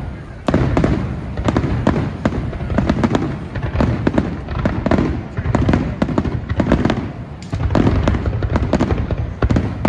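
Fireworks display: a rapid, near-continuous barrage of aerial shell bursts and crackling reports, with deep booms coming in pulses.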